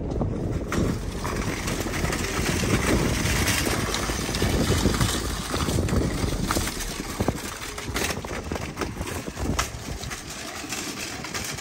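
Loaded wire shopping carts rolling over paving stones: a steady rumble from the wheels with scattered rattles and clicks from the baskets, easing off over the last few seconds.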